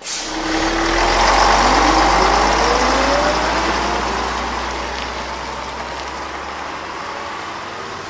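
Truck engine sound effect, starting abruptly with the engine revving up, its pitch rising over the first few seconds, then running steadily and slowly getting quieter.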